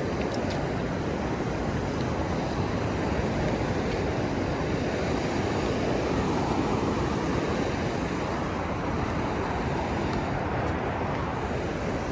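Steady rushing of ocean surf, swelling a little midway.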